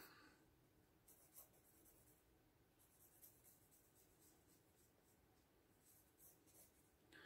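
Very faint pencil strokes scratching on paper in a few short bursts of sketching.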